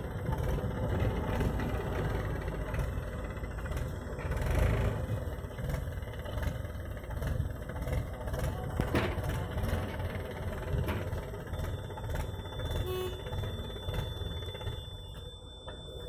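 Diesel engines of a Mahindra tractor and a JCB 3DX backhoe loader running steadily at a dig site. A thin, steady high tone joins in about two-thirds of the way through.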